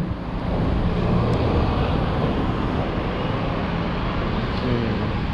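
Steady street-traffic rumble with wind noise on the microphone.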